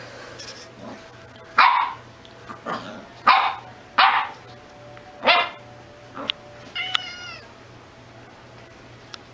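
Corgi puppy yapping with short, sharp barks, about five in the first five seconds, then a brief higher call about seven seconds in.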